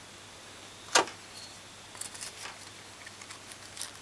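Small parts of a starter relay being handled and fitted back together by hand: one sharp click about a second in, then light scattered clicks and rustles.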